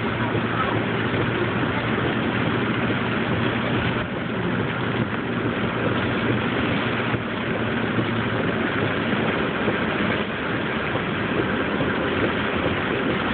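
Steady cabin noise of a car driving on a wet road: a low engine hum under an even hiss of tyres on wet pavement.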